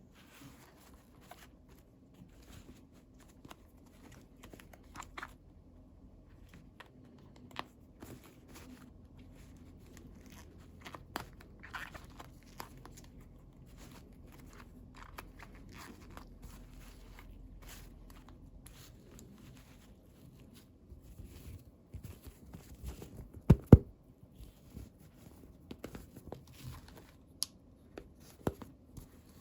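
Toy packaging being handled and torn open, with plastic crinkling and scattered small clicks and taps. A pair of louder knocks comes about three-quarters of the way through.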